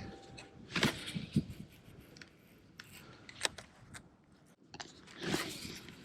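Fishing rod and baitcasting reel being cast and worked: scattered sharp clicks and small scraping crunches, then a short rushing noise about five seconds in.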